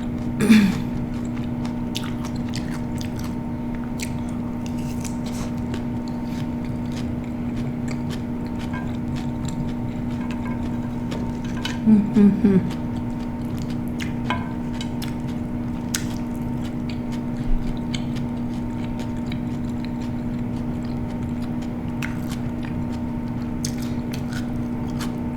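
Chewing and crunching of a kale salad mouthful, with scattered small clicks and a couple of brief mouth sounds about half a second in and near the middle, over a steady background hum.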